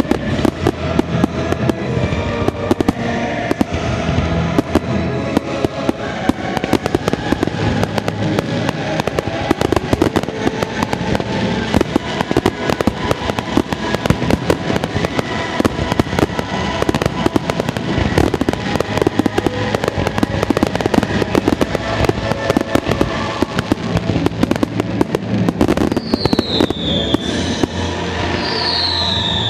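Aerial fireworks going off in a rapid, continuous barrage of shell bursts and crackle. Two falling whistles come near the end.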